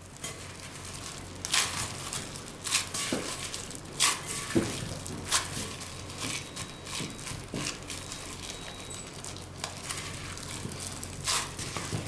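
Bread dough being mixed by hand in a bowl: irregular soft scrapes, taps and rustles as the bowl is turned and worked, over a faint steady low hum.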